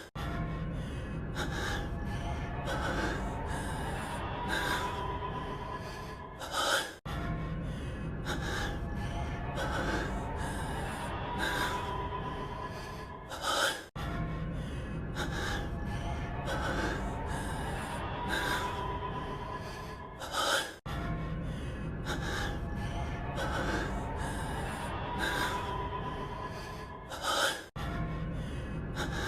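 A man's heavy breathing from an anime audio clip, looped about every seven seconds. Each pass ends in a louder, sharp gasp and a brief cut before the loop restarts, over a steady low background.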